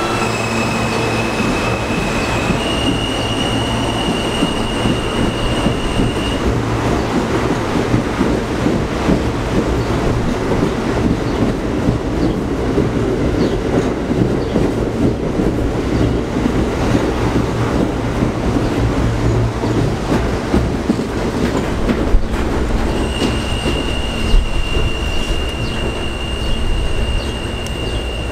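NYC Subway R160 train pulling out and running past along the platform: a steady rumble and clatter of wheels on rail with a few sharp knocks. A high steady squeal sounds for a few seconds near the start and again near the end.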